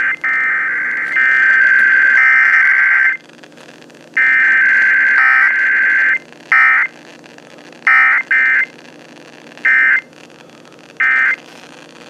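Emergency Alert System SAME data tones from the radios' speakers, part of a Required Weekly Test. First come two long, shrill data bursts of a couple of seconds each, then five short bursts about a second apart, the end-of-message code. No voice message follows.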